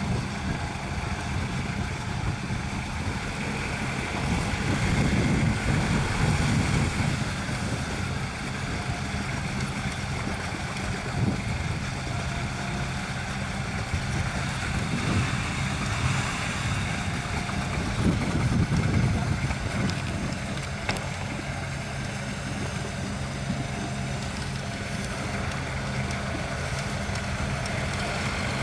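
UAZ 4x4 off-roader's engine pulling under load as it wades through deep muddy water, swelling louder as it is revved a few seconds in and again about two thirds through, with water sloshing around the wheels.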